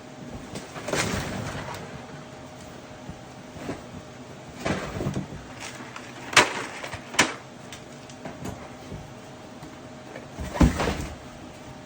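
Dry food packaging being handled while dry snack-mix ingredients are poured: a few separate rustles, two sharp clicks and a knock near the end.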